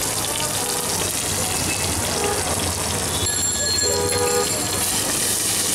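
Chicken pieces sizzling in oil on a large flat iron griddle, a steady hiss, with busy street noise around it. A short ringing tone sounds for about a second and a half a little past the middle.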